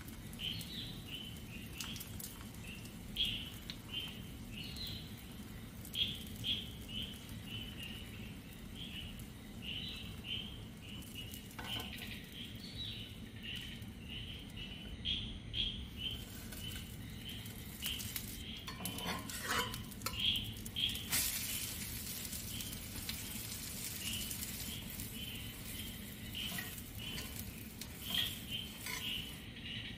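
Egg omelette cooking in a cast-iron pan, with a faint sizzle and several clinks and scrapes of a spoon, glass lid and steel spatula against the pan, the sharpest a little before the middle and again about two-thirds through. A bird chirps repeatedly in the background, a short high chirp a couple of times a second.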